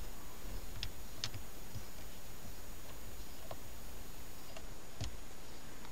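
About half a dozen sharp clicks at irregular intervals over a steady hiss, the loudest about five seconds in: a metal hex key tapping and pushing into the release holes of a VDO CDR 2005 car radio's plastic faceplate.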